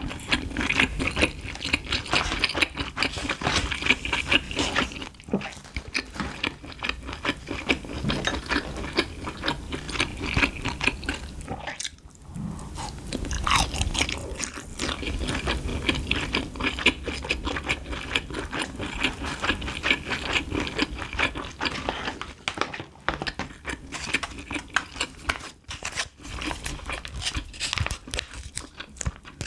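Close-miked chewing and biting of a grilled meatball skewer (hot bar): wet mouth sounds and crunchy bites, with a short lull about twelve seconds in. Near the end, a plastic food pouch crinkles as it is handled.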